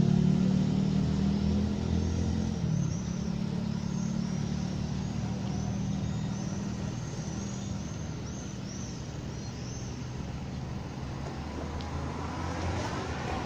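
Street traffic: motorcycle and car engines passing, a strong engine hum fading over the first few seconds and a weaker one going on behind. High repeated chirps come in from about three seconds in, and another vehicle approaches near the end.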